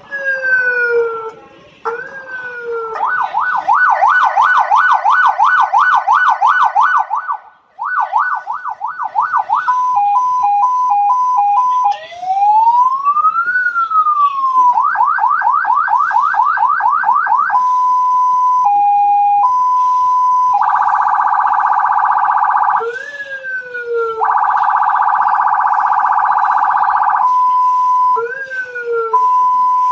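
Electronic police-car siren through its loudspeaker, cycling through its tones: short falling chirps, a fast up-and-down yelp, a quick two-note hi-lo, one slow rising and falling wail, and buzzing horn blasts.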